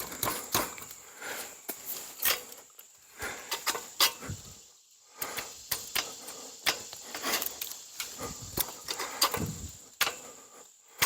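Ladder stand knocking and clicking irregularly as it is climbed and shifted against a tree, with a short lull about five seconds in. The stand is not settling, which the owner puts down to one foot resting on a rock so that it tips to one side as he climbs.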